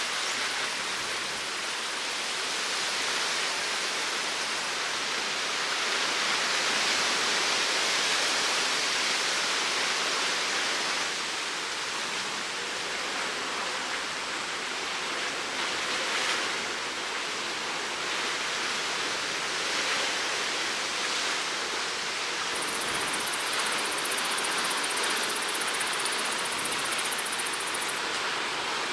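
Steady rushing and washing of choppy sea water, an even hiss without a distinct engine note.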